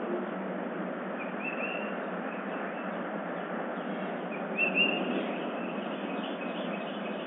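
Small birds chirping outdoors: a few short rising chirps, the loudest near the middle, over a steady hiss, heard through a security camera's microphone.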